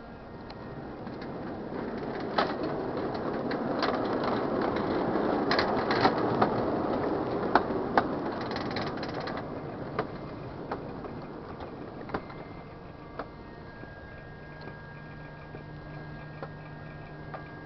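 Rumble of a ride-on miniature train rolling past on its track, building over a few seconds and then fading, with scattered sharp clicks. A faint low steady hum follows near the end.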